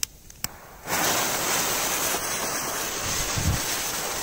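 Two short clicks, then about a second in a small spinner firework catches and sprays sparks with a loud, steady hiss.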